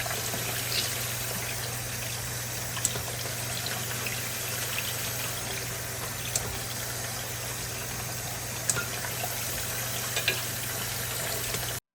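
Kitchen faucet running steadily into a sink during hand dish-washing, with a few light knocks. The water cuts off suddenly near the end.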